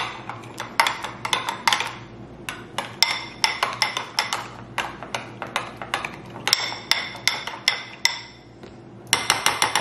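Metal spoon clinking against the sides of a glass bowl while stirring a thick mayonnaise-based sauce: a quick run of irregular clinks and knocks with a short pause near the end.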